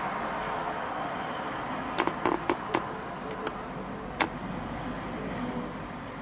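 Steady background noise with a run of four sharp clicks in quick succession about two seconds in, then two more single clicks.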